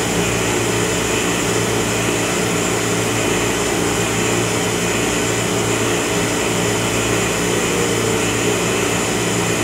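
Steady hum of an Oxford Plasmalab 133 plasma etch system's vacuum pumps and support equipment running, several low held tones over an even whirring noise.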